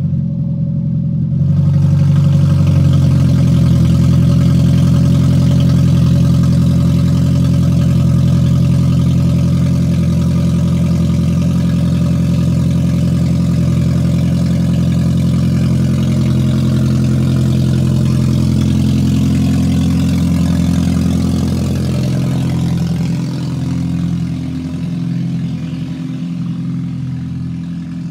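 Second-generation Toyota Prius's 1.5-litre four-cylinder petrol engine running with a loud, deep exhaust drone, the race-car sound of an open exhaust after its catalytic converter has been stolen. It holds steady, then fades over the last several seconds as the car drives away.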